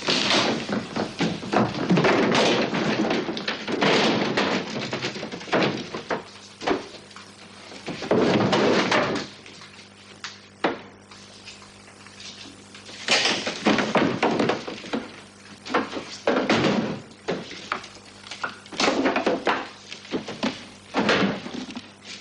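Wooden crates being handled and moved: repeated heavy thuds and knocks with scraping, coming in uneven clusters every second or two.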